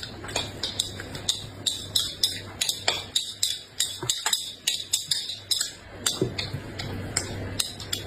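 Eating at the table: an irregular run of sharp clicks and clinks of cutlery against dishes, two to four a second, over a low steady hum.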